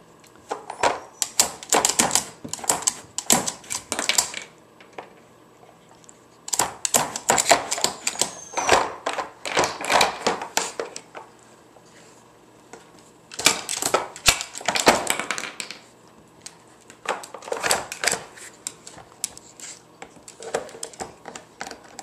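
Hard plastic dog puzzle toy clattering as a dog noses and paws its pull-out drawers. It comes in four bursts of rapid clicks and knocks, with short pauses between them.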